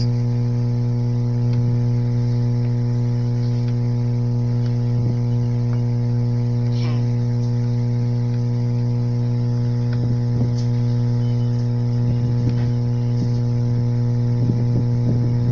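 A steady low hum with many overtones at an even level, with a few faint clicks near the middle and towards the end.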